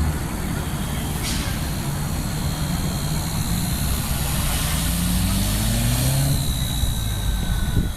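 Motor noise: a low engine rumble that rises in pitch through the middle, with a steady high whine over it.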